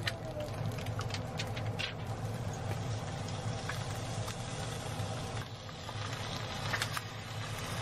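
Egg frying in oil in a nonstick pan: a steady sizzle with scattered small pops, over a constant low hum.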